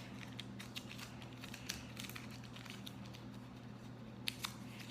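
Faint crinkling and small scattered clicks of a plastic water bottle being handled while its label sticker is torn off, with a sharper click near the end, over a faint steady low hum.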